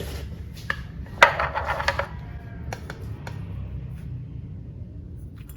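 Clinks and knocks of kitchenware: a loud knock about a second in, a quick run of clattering clinks, then a few single clicks, over a low steady rumble.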